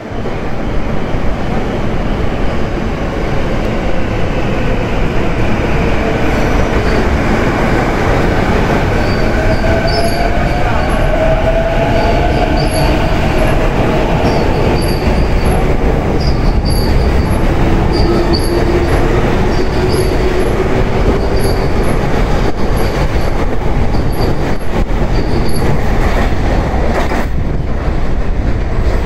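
JR East E233-series Chūō Line electric train pulling out and accelerating past, its motor whine slowly rising in pitch over the rumble of the wheels on the rails, with a regular run of light clicks through the middle of the passage.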